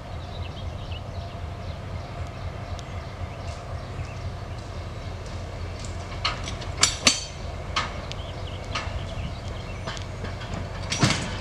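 Distant diesel-hydraulic shunting locomotive (TGM6D) running steadily with a low rumble while it moves flat wagons. A few sharp knocks come about six to nine seconds in, and the loudest comes near the end as the hand-thrown switch lever is worked.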